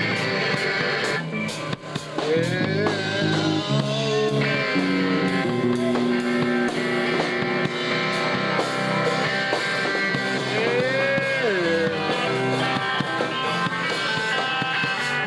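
Live rock band playing: guitar over drums with steady cymbal hits, with a brief drop in loudness about two seconds in and a few bending notes.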